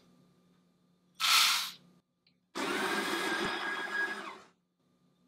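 Freshly roasted coffee beans poured into the clear hopper of an electric coffee grinder, a short rattle about a second in, then the grinder's motor runs for about two seconds, grinding the beans, and stops.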